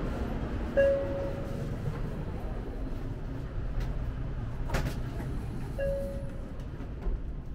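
Steady low hum and rumble inside a Shinkansen bullet train car standing at the platform. Two short beeping tones sound about five seconds apart, with a brief click between them.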